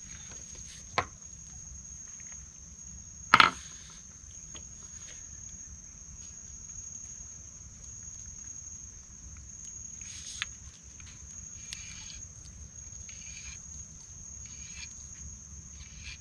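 Steady high-pitched drone of insects, broken by a few sharp knocks: a small one about a second in, the loudest a few seconds in, and another after about ten seconds.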